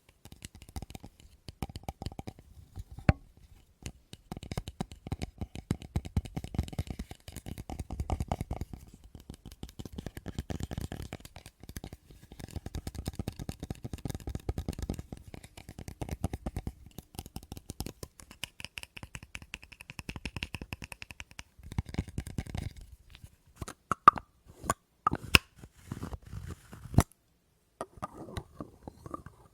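Rapid, close-miked tapping on objects and handling of their lids, with a few louder, sharper clicks near the end.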